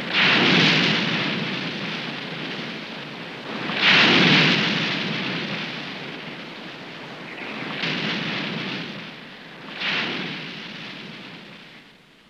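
Surf: waves breaking one after another, each crash swelling and then washing away, four of them, the loudest near the start and about four seconds in.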